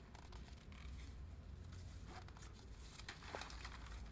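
Faint rustling and scraping as a framed canvas painting is handled and turned around, with a few soft knocks, over low room hum.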